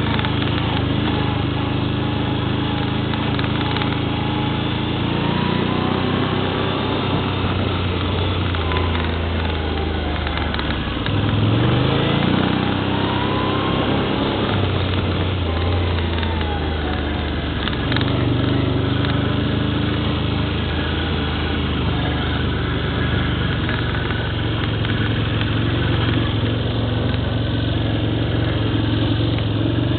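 ATV engine running under way, its pitch rising and falling with the throttle, with a brief rev-up about eleven seconds in.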